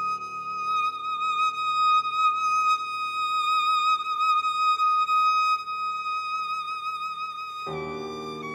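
Viola and piano: the viola holds one long high note with vibrato over a sustained piano chord. Near the end the piano plays a new, lower chord and the viola steps down to a lower note.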